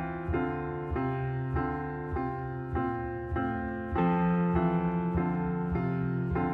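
Background piano music: even, repeated chords struck about every half second or so, with a long low note held from about the middle on.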